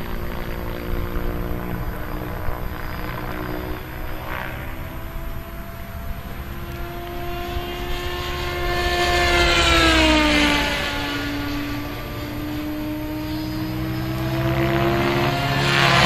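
Henseleit radio-controlled model helicopter making high-speed passes: a whining rotor-and-motor tone that swells and drops in pitch as it flies past, about ten seconds in and again near the end.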